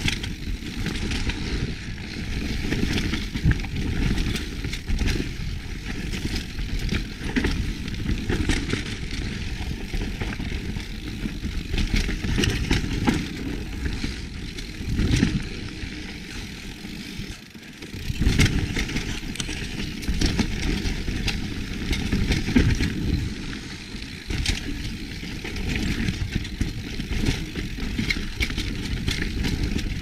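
Kona Process 153 full-suspension mountain bike descending a dirt trail. The tyres rush over dirt and roots while the chain and frame give a constant rattle of small clicks and knocks. A little past halfway the noise drops out briefly, then comes back sharply with a loud clatter.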